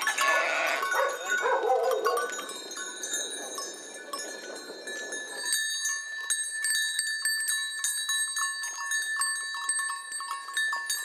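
A flock of sheep bleating, with the clinking of their bells. About halfway through, the lower sounds drop away and a dense ringing of many small bells goes on.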